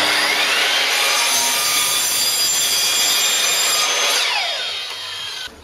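Corded mitre saw spinning up with a rising whine and crosscutting a softwood board, then winding down with a falling pitch about four seconds in; the sound cuts off abruptly near the end.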